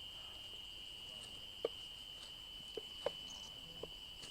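An insect, such as a cricket, keeps up one steady, unbroken high-pitched trill, with a few faint short ticks about halfway through.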